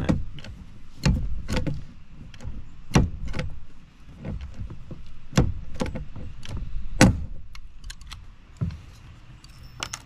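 Hand pop-rivet tool being squeezed to set rivets through a switch panel plate, with a series of sharp clicks and snaps at irregular intervals of a second or two.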